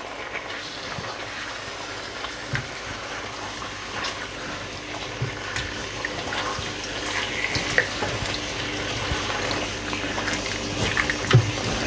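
Chicken pieces in a yogurt-and-spice marinade sizzling in hot oil in a stainless steel pan, a steady hiss, with a few soft taps and scrapes of a silicone spatula as the pieces are stirred.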